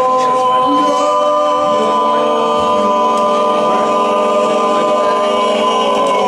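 Men's a cappella gospel vocal group holding one long sustained chord in several voice parts, the song's closing chord, released about six seconds in.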